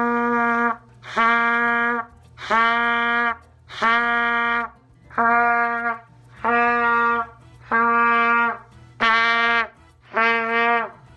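Trumpet played by buzzing the lips into the mouthpiece, sounding the same low note about nine times, each note held just under a second with short breaks between.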